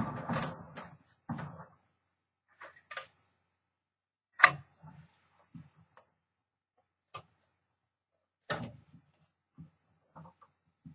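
Scattered mechanical clicks and knocks from a 1963 Smith Corona Sterling manual typewriter being handled, with a rustling clatter in the first second and the sharpest click about four and a half seconds in. The clicks are spaced irregularly, not in a typing rhythm.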